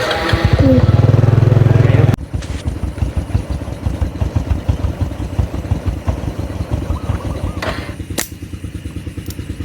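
A small motorcycle engine runs loudly for about two seconds, then drops to a lower, steady rapid putter. A single sharp click comes about eight seconds in.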